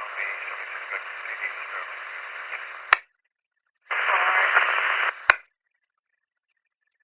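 Police scanner picking up two short radio transmissions of hiss and garbled, unintelligible voice, about three seconds and then about a second and a half long, each cut off by a sharp squelch click.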